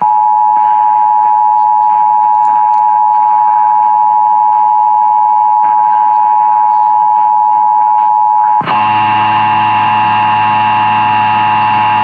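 Emergency Alert System two-tone attention signal over AM radio: two steady tones just below 1 kHz sounding together, loud and unbroken. A low buzzing hum joins the tones about eight and a half seconds in.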